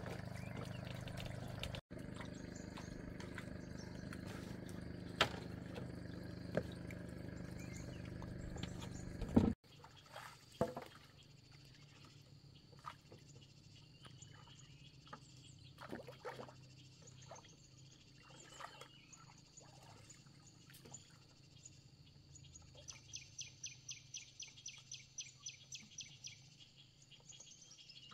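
Running water with a steady low hum, which stops abruptly about ten seconds in. It gives way to a quiet outdoor background with scattered clicks and bird chirps, and near the end a rapid pulsed animal call repeats about four times a second for several seconds.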